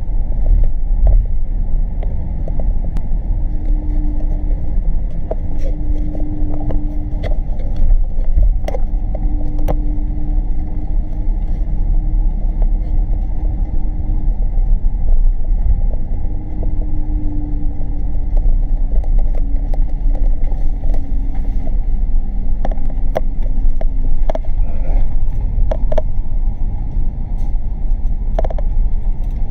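Steady low rumble of a city bus driving along, heard from inside the cabin: drivetrain and road noise, with a hum that comes and goes and sags slightly in pitch. Scattered sharp clicks and rattles come from the cabin.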